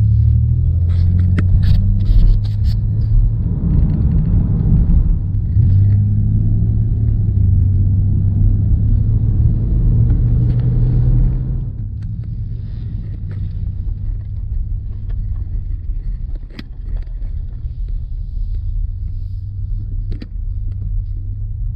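Car driving, heard from inside the cabin: a steady low engine and road rumble, louder for the first half and easing off about halfway through as the car slows.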